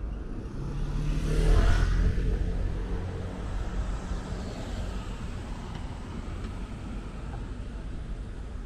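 A motor vehicle passing close by on a city street, loudest about a second and a half in and then fading into steady traffic rumble.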